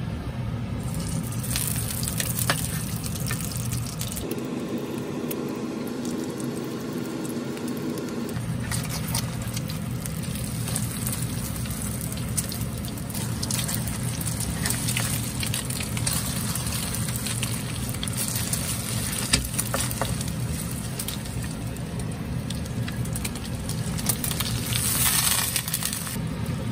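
Pork fat sizzling and crackling in a hot pan, with many small pops and spits over a steady low hum.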